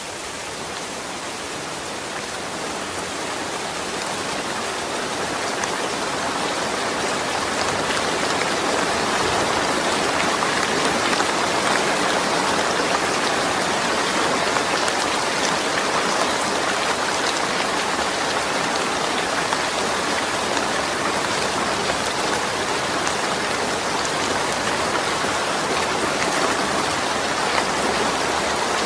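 Steady rain falling, with no thunder, fading in over the first several seconds and then holding even, with fine drop ticks scattered through it.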